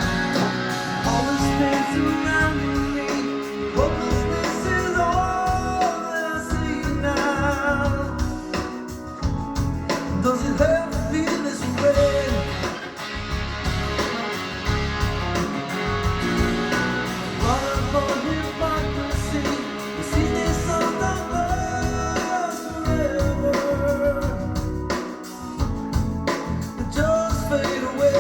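Rock or blues song with guitar, a steady beat and a singing voice, played through an audio system.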